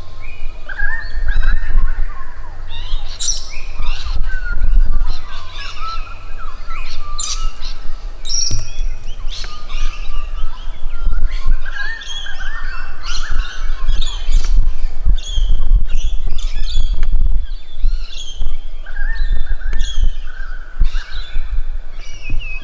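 Several birds calling and chirping in the bush, many short overlapping calls and trills throughout, over a low rumble.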